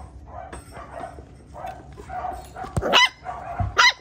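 English Goldendoodle puppy barking: two short, high barks about three and four seconds in, with quieter sounds between.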